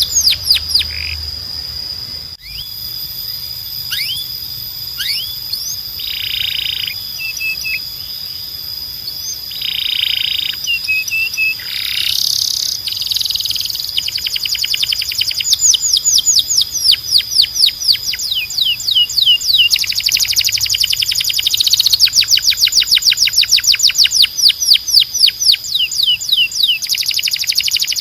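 Spanish Timbrado canary singing: long fast trills of rapidly repeated downward-sweeping notes, broken by short buzzy phrases. The trills grow louder and denser in the second half.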